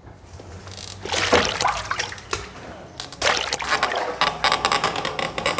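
Water sloshing and splashing in a plastic crate footbath as a rubber boot steps in and moves about, in two bouts.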